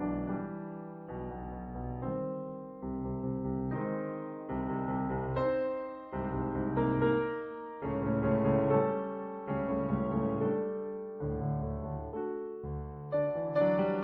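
Background piano music: slow chords and melody notes, a new chord struck every second or so.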